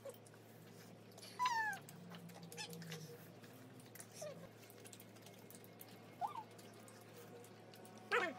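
A short high-pitched cry falling in pitch about a second and a half in, and a fainter rising-and-falling one near six seconds, over faint clicks of eating at the table.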